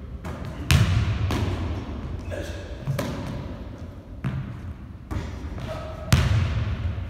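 A basketball bouncing on a hardwood gym floor: several loud, irregularly spaced thuds, each with a short echo.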